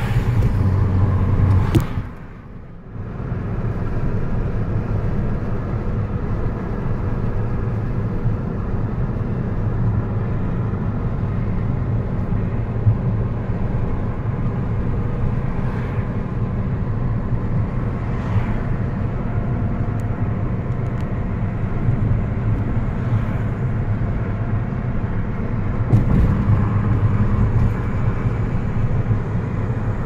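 Car interior noise while driving: a steady low rumble of engine and tyres on the road, dropping out briefly about two seconds in.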